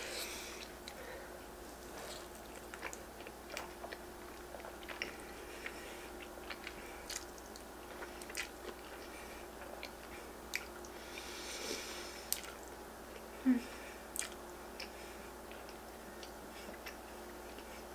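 Close-up mouth sounds of eating ramen noodles: chewing and slurping, with many small wet clicks. About thirteen seconds in there is a brief low hum, the loudest sound.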